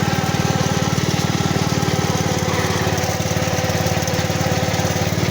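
Small engine of the machine towing the mower, idling steadily with a fast, even beat.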